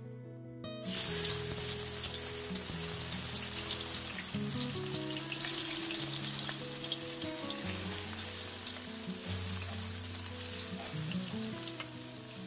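Spice-coated hilsa fish pieces sizzling in hot oil in a large metal wok. The loud frying hiss starts suddenly about a second in, holds steady, and eases off near the end.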